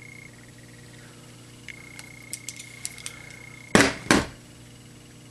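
A few light clicks, then two loud knocks about a third of a second apart as a wooden block holding a piece of steel is handled close to the microphone, with a faint steady high whine beneath.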